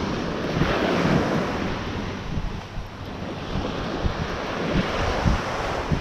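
Ocean surf washing onto the beach, with a broad swell about a second in, and wind buffeting the microphone in low, irregular gusts.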